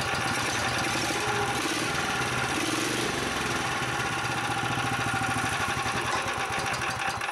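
Small single-cylinder four-stroke engine of a motor tow-sled (motosobaka) running steadily. Its governor lever is being pushed toward low throttle by an over-long spring, which the owner blames for the engine starting and running wrongly.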